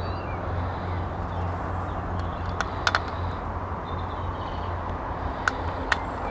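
Outdoor background noise: a steady low rumble with faint bird chirps and a few sharp clicks.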